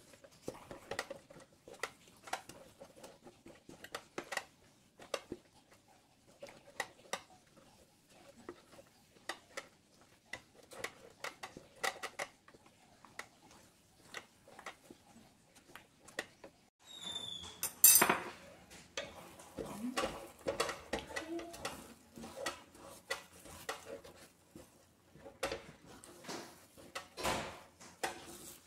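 Wooden spatula stirring a thick mash in a stainless steel pot, knocking and scraping against the metal sides in irregular clicks. A louder clatter comes about two-thirds of the way through.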